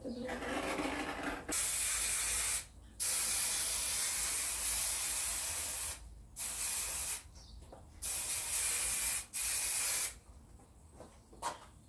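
Aerosol spray adhesive hissing from the can in about five bursts, the longest about three seconds, as glue is sprayed onto carpet and plywood.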